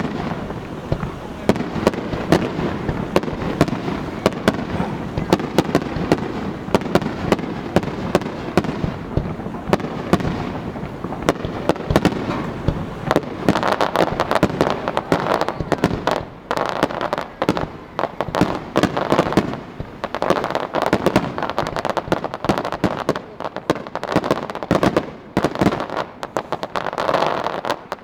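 Fireworks display: a dense, continuous barrage of crackling and popping from many shells bursting at once, over a steady rumble of booms. The crackling thins out and drops away right at the end.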